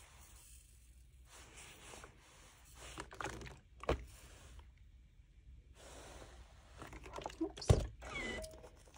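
An iron pressing fabric pieces on a pressing mat, with soft hissing in stretches and two knocks, one near the middle and a louder one near the end.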